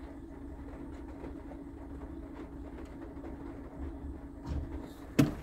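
Lorry's diesel engine idling steadily, heard from inside a parked van, with a sharp knock near the end.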